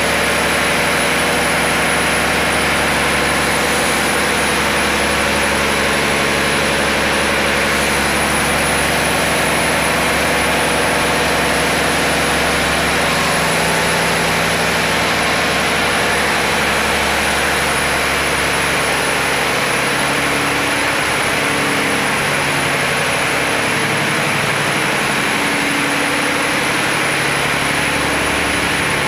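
Fishing boat's inboard diesel engine running steadily and loud, heard close up inside the engine room.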